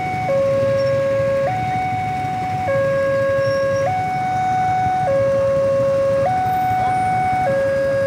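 Railway level-crossing warning alarm sounding a steady two-tone hi-lo signal, each tone held about a second, warning that a train is about to pass.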